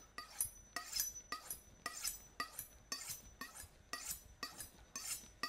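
Chef's knife blade drawn along a steel honing rod, alternating sides, in quick even strokes of about two or three a second, each a short metallic scrape.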